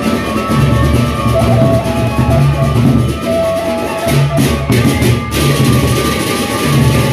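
Sasak gendang beleq ensemble playing: the large double-headed barrel drums are beaten in a dense, driving rhythm, with steady ringing tones held above them.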